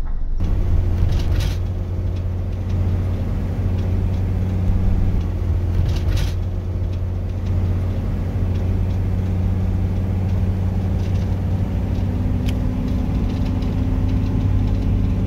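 Steady drone of a van's engine and tyres on the road, heard from inside the cab while driving, with a few brief clicks or rattles.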